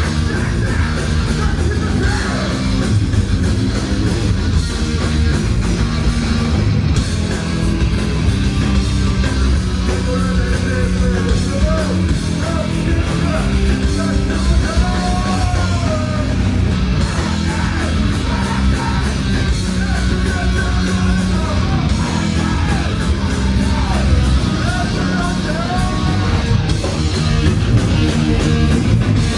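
Loud rock music with heavy electric guitar and bass, and a voice singing over it through the middle of the stretch.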